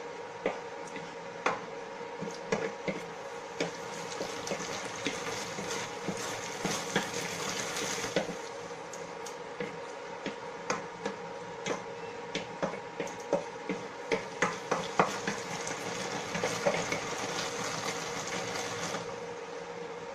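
Wooden spoon stirring shrimp paste in a stainless steel pan, knocking and scraping against the metal with short irregular clicks over a steady sizzle of the paste frying in oil. The stirring stops near the end.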